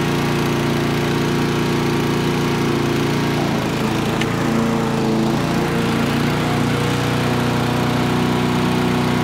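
Honda-engined Husqvarna rotary push mower running steadily at full throttle as it is pushed across the lawn. It holds an even speed: its over-revving fault is now cured.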